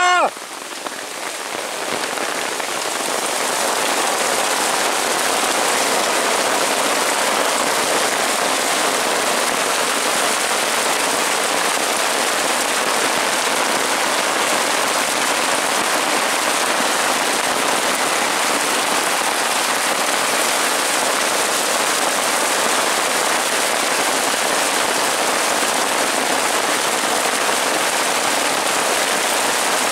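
Heavy storm rain pelting the nylon tarp overhead and the leaf-covered forest floor: a dense, steady hiss that swells over the first few seconds and then holds.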